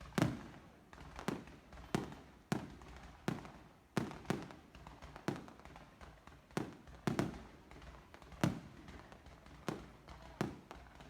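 Aerial fireworks bursting: a run of sharp bangs at irregular spacing, roughly one or two a second, each trailing off in an echo.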